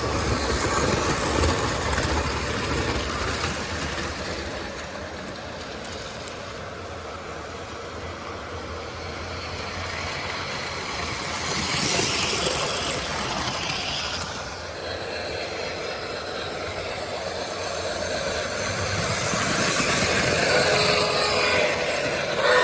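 American Flyer S-scale model train running on its track, the wheels and motor making a steady running noise that swells louder and fades as the train passes.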